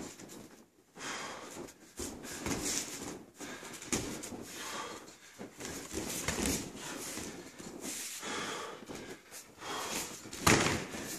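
Sparring with gloves: bare feet shuffling and thudding on the mats, gloved punches and kicks landing, and sharp breaths forced out through the nose, in irregular bursts with a loud thump near the end.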